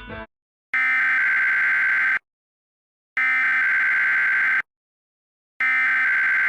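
Emergency Alert System SAME header: three identical bursts of raspy, warbling digital data buzz, each about a second and a half long with a second of silence between them. They are the coded start of an EAS test, broadcast over FM radio.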